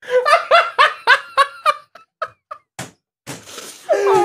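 A person laughing hard in rapid bursts, about four a second, which trail off after two seconds. Near the end comes a long, wavering, high-pitched vocal sound.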